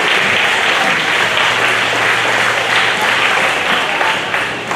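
Audience applauding, a dense steady clapping that eases off near the end.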